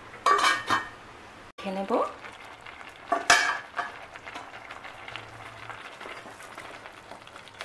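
Cooked pulao rice being stirred with a spatula in a nonstick pot, with one sharp clank against the pot about three seconds in and a faint steady hiss from the pot.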